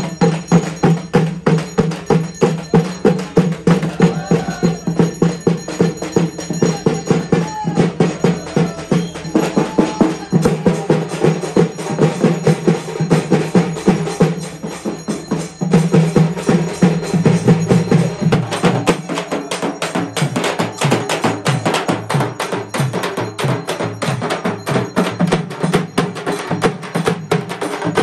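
Several Tamil frame drums (tapou) beaten with sticks in a fast, steady, driving rhythm, played as ensemble festival drumming.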